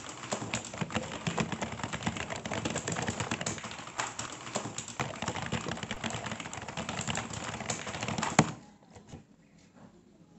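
Fast typing on a computer keyboard: a dense clatter of key clicks that stops abruptly about eight and a half seconds in.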